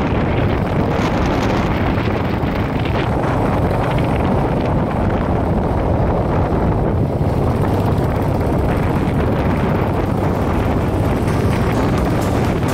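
Motorcycle running at a steady road speed, with wind rushing over the microphone.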